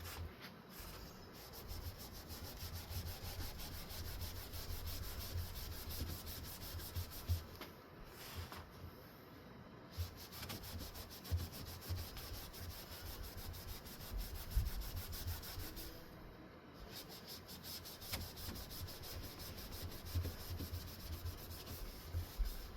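A wood-veneer ceiling fan blade being scrubbed by hand with a cleaning wipe in quick back-and-forth rubbing strokes, with short breaks about eight and sixteen seconds in.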